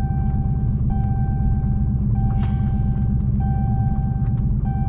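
Dodge Challenger Hellcat's supercharged V8 running as a steady low rumble heard from inside the cabin. Over it a repeating electronic warning chime sounds, long beeps of about a second each with short gaps between them.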